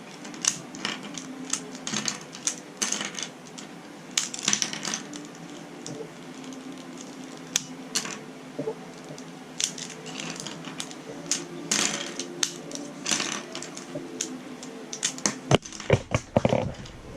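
Plastic Rubik's Cube pieces clicking and clacking as they are pried out of the cube and put down, in irregular clicks throughout, with a louder run of knocks near the end.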